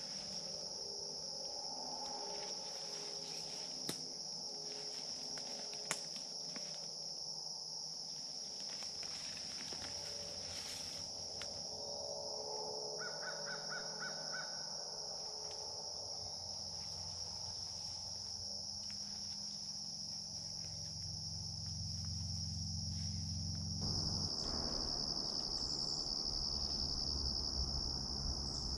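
Insects droning steadily at a high, even pitch, with crows cawing several times, mostly in the first few seconds and again about twelve seconds in. A few faint clicks are scattered through.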